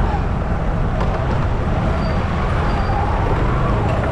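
Street traffic noise: a steady low rumble of vehicle engines and tyres on the road.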